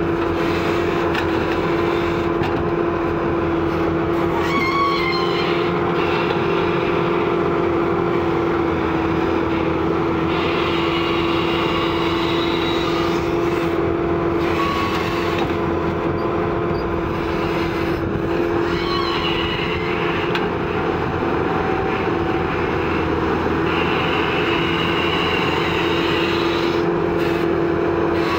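Kobelco SK120 hydraulic excavator's diesel engine running steadily under load while it works its boom and bucket, a constant drone with a clear steady hum over it.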